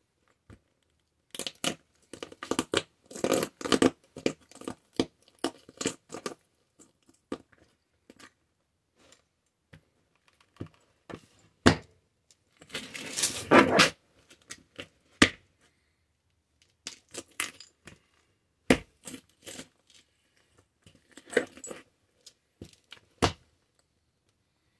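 Cowboy boot heel grinding the remains of a small diecast John Deere toy tractor into a concrete floor: bursts of crunching and scraping metal and plastic fragments. The loudest and longest grind comes about thirteen seconds in, and single sharp cracks follow.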